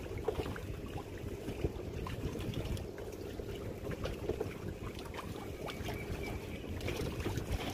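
Steady low rushing of wind and water outdoors, with scattered faint ticks and knocks.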